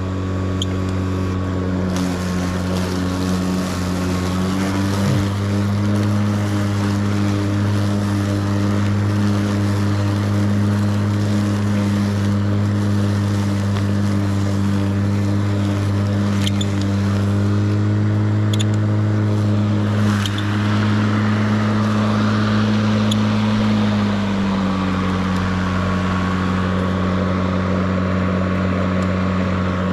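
Kobalt 80V brushless cordless lawn mower running and cutting grass, a steady electric motor hum with the whir of the blade. The hum rises slightly in pitch about five seconds in and falls back near the end, in keeping with the mower's load sensing speeding the blade up in thicker grass.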